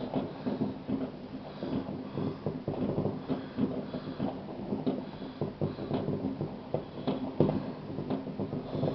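Distant New Year fireworks going off: many irregular pops and bangs overlapping, with one louder bang about seven seconds in.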